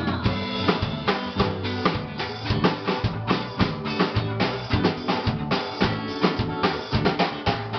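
Carnival band music: drum kit with bass drum and snare beating out a busy, driving rhythm over sustained pitched instrument notes.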